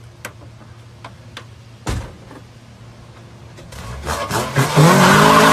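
A few sharp clicks and a thump, then a motor vehicle engine starts revving near the end, its pitch rising and then holding steady and loud.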